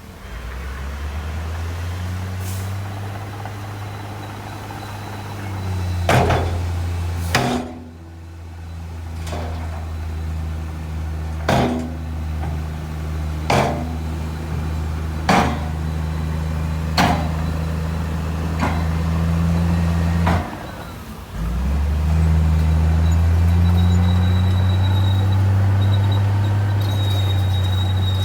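Heavy diesel earthmoving machinery working: a low, steady engine drone with a series of sharp metallic clanks, about one every two seconds, through the middle. The engine drops off briefly about twenty seconds in, then comes back louder and steady.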